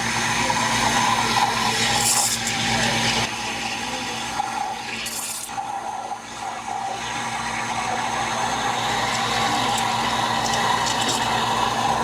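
Espresso machine running: a steady hum under hissing, gurgling liquid.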